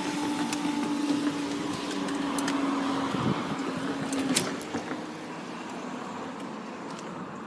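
Great Western Railway Class 166 diesel multiple unit running at the level crossing: a steady engine hum with a couple of held notes and scattered clicks, ending in a sharp knock about four seconds in. After that the sound dies away as the train draws off.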